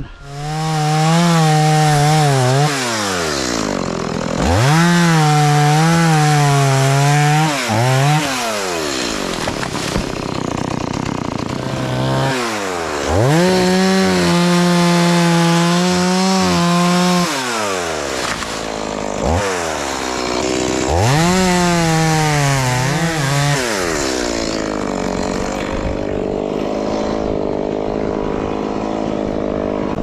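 Stihl two-stroke chainsaw cutting mango tree limbs, revved to full throttle in four bursts with the engine note sagging and wavering under load, dropping off briefly between cuts, then settling to idle for the last few seconds.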